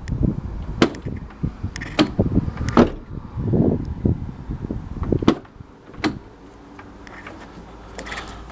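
Rear door of a 2006 Fiat Punto Grande being worked by its outside handle: the handle and latch click and the door knocks as it is opened and shut, about five sharp clicks over six seconds, the latch now releasing after the cable-tie fix.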